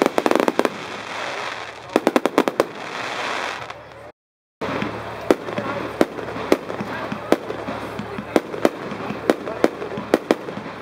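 Fireworks going off: a dense clatter of crackling pops at the start and another quick cluster about two seconds in, then, after a brief gap of silence about four seconds in, a steady run of single sharp bangs about two a second as one firework fires shot after shot.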